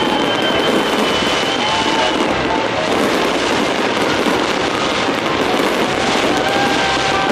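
Large fireworks display crackling and popping without a break, a dense mass of small bursts, with music playing along in long held notes.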